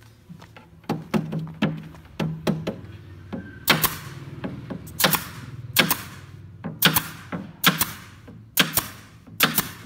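Pneumatic nail gun firing nails through a thin wood panel into its frame. Each shot is a sharp crack followed by a short hiss of exhaust air, about one a second from roughly four seconds in. Lighter clicks and knocks come before that.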